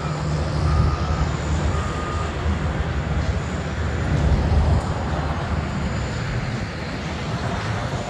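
Low rumble of heavy construction machinery and traffic. A vehicle's backup alarm beeps steadily about once a second for the first two seconds, then stops.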